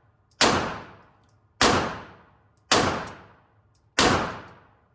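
Four single pistol shots fired at a steady pace, about one every 1.2 seconds. Each is a sharp crack that dies away over roughly a second.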